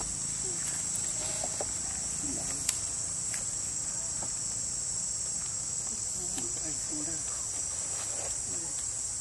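Steady high-pitched drone of an insect chorus in the trees, with faint low calls underneath and one sharp click about two and a half seconds in.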